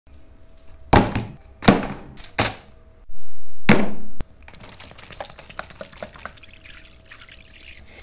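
A few sharp thunks as a plastic basin and its contents are set down on a wooden table, then water pouring steadily into the plastic basin from about halfway through.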